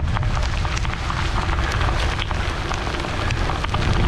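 Quarter- to dime-sized hail pelting down, with many sharp ticks of single hailstones striking close by. Underneath is a heavy low rumble of wind buffeting the microphone.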